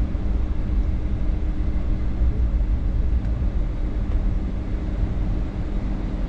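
Cabin noise inside a Boeing 757-200 taxiing after landing: a steady low rumble from its Rolls-Royce RB211 engines at idle, with a constant low hum.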